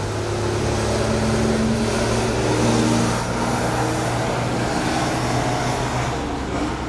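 A motor vehicle's engine running nearby with a steady low hum. It grows louder to a peak about three seconds in, then eases off.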